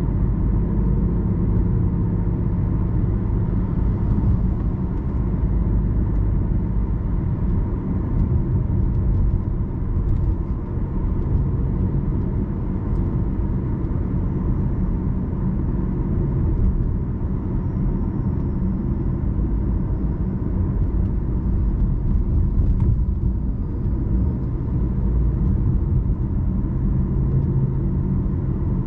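BMW i8 heard from inside the cabin while driving at city speed: a steady low road and tyre rumble, with a faint steady hum above it.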